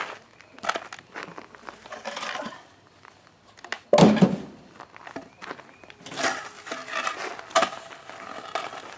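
Scattered knocks, clatter and scrapes of wooden porch deck boards being handled and fitted, with one loud thump about four seconds in.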